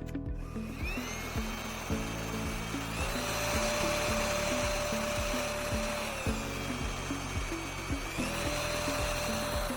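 Cordless stick vacuum motor starting up with a whine about a second in, its pitch stepping up about three seconds in, dropping back after about six seconds, stepping up again near eight seconds and winding down near the end. Background music with a steady beat plays underneath.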